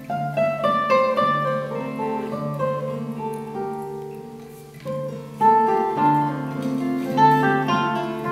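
Steel-string and nylon-string acoustic guitars playing a duet: plucked melody notes over a repeated low bass note, dipping quieter near the middle and then coming back louder.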